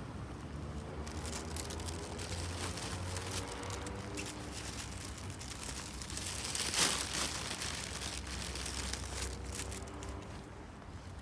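Footsteps walking along a concrete footpath over a low, steady rumble of distant traffic, with a brief louder hiss about seven seconds in.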